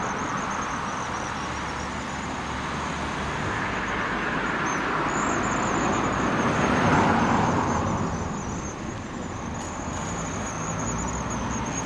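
Road traffic passing: a steady wash of car noise that swells as a vehicle goes by around six to seven seconds in, then eases off.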